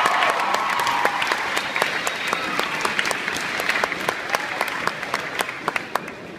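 Assembly audience applauding, with some voices calling out at first; the clapping thins out and dies away near the end.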